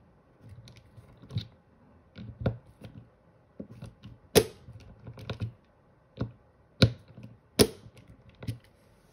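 Torque screwdriver set to 12 inch-pounds turning the set screws of a red dot mounting plate on a pistol slide: a string of light, irregular clicks and ticks, with three sharp, louder clicks in the second half.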